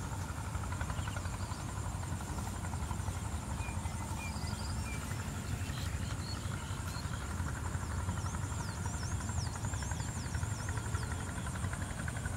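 Steady low rumble under a constant high buzz. From about eight seconds in, a bird gives a quick run of about ten falling whistled notes.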